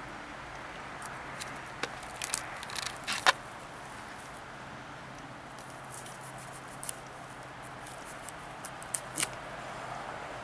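A knife cutting and hands pulling at a pheasant carcass: a few short sharp clicks and crackles, bunched about two to three seconds in and again near the end, over a steady hiss.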